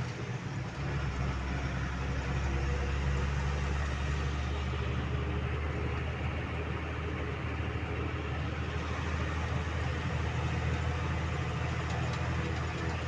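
Heavy diesel engine running steadily at low revs, a deep drone that settles lower and stronger about a second in.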